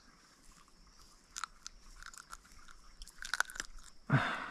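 Faint close clicks and crackles of a small cod being handled and unhooked, with a thicker run of clicks after about three seconds and a short rush of noise near the end.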